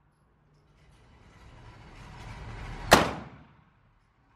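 A single 10mm pistol shot from a Glock 40, a sharp crack about three seconds in with a short ringing tail, over a faint hiss.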